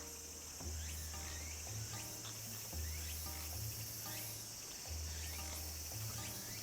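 Background music with a low bass line changing note about once a second, over a steady high chirring of crickets.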